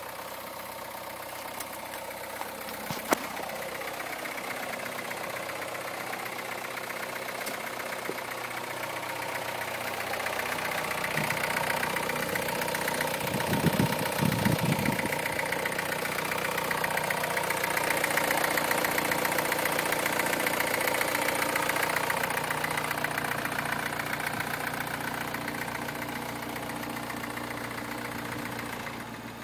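2009 MINI Cooper S's turbocharged 1.6-litre four-cylinder running on a cold start with a distinct timing chain rattle, the sign of a slack chain from a failed chain tensioner. A sharp click about three seconds in, and the engine sound swells louder through the middle before easing.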